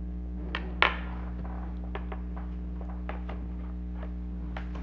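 A few light clicks and taps of hard plastic toy parts being handled, the loudest about a second in, over a steady low hum.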